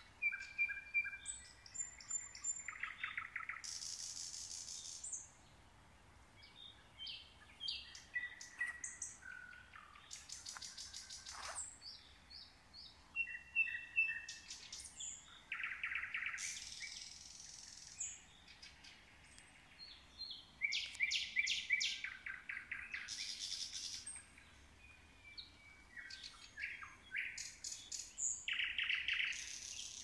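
Several songbirds singing in a forest: short whistles and trills come one after another with brief pauses, and every few seconds a high, fast-pulsed phrase about a second long stands out.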